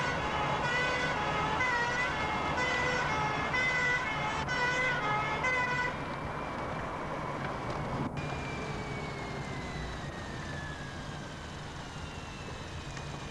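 Fire engine's two-tone siren sounding, switching back and forth between two pitches over the engine's rumble. About six seconds in the two-tone stops and gets quieter, and a fainter tone slides slowly down in pitch.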